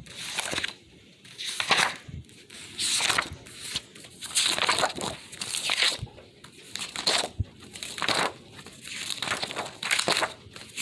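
Stiff paper pages of a spiral-bound sticker book crinkling and rustling as they are flipped and handled, in a string of short rustles about one a second.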